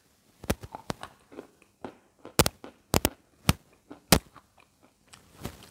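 Crisp, sharp crunches of a dry white chunk of chalk being bitten and chewed close to the microphone, about a dozen crunches at an uneven pace, the loudest ones from about halfway through.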